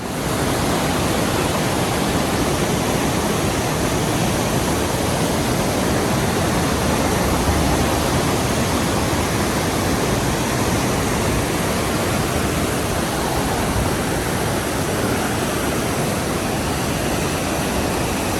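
Steady rushing of fast river water, the Niagara River rapids by the Goat Island bridge, an even wash of noise across all pitches.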